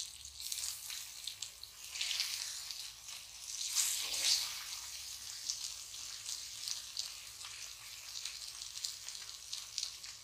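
Pomfret fish steaks frying in oil on a cast-iron dosa tawa: a steady crackling sizzle that swells louder about two seconds in and again about four seconds in as the pieces are turned over with a spatula.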